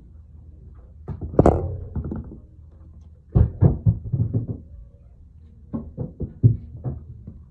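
A sneaker being handled and turned over by hand: irregular dull thumps and knocks in three short clusters, the loudest about a second and a half in.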